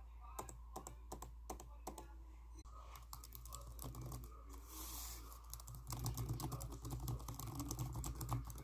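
Computer keyboard being typed on: a fast, irregular run of keystrokes, with a steady low hum underneath.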